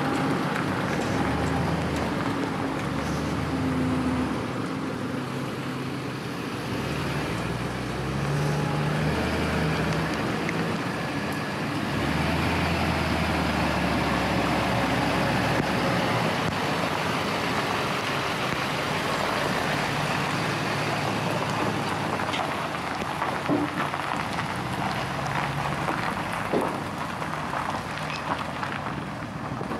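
Pickup truck engine pulling a loaded flatbed trailer past at low speed, its note stepping up and down in pitch as it moves off, then steadier and fading toward the end, over a steady hiss of rain.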